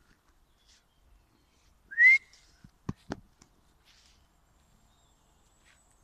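A person whistles once: a short, loud rising whistle about two seconds in. About a second later come two sharp clicks close together.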